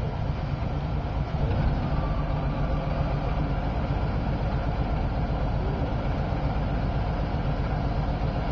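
Bucket truck's engine running steadily, driving the boom's hydraulics while the raised bucket is moved down.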